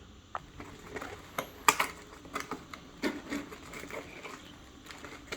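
Plastic parts and packaging being handled, giving scattered light clicks and rustles, the sharpest about a second and a half in.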